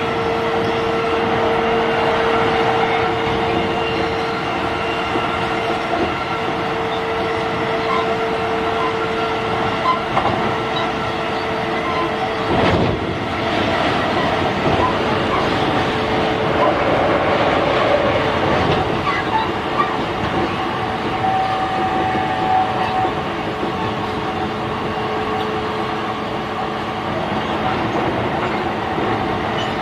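JR East E531 series electric train running at speed, heard from inside the car: a continuous rumble of wheels on rail with scattered small clicks, under a steady whine that fades out near the end. About thirteen seconds in, a brief louder rush passes.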